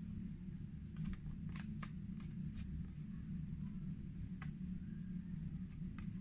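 Scattered light clicks, irregularly spaced, over a steady low hum.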